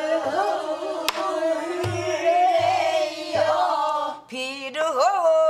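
A woman singing pansori in long held notes that bend slowly in pitch, pausing briefly near the end before taking up the line again. Under the voice, a sori-buk barrel drum sounds a few short low strokes, with one sharp click about a second in.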